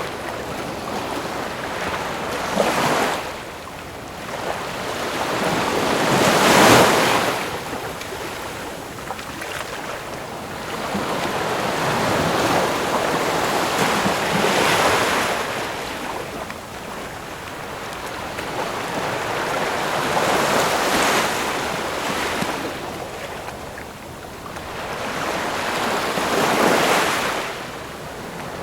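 Ocean waves breaking and washing on a shore, each surge swelling up and falling back every four to six seconds. The loudest wave breaks about a quarter of the way in.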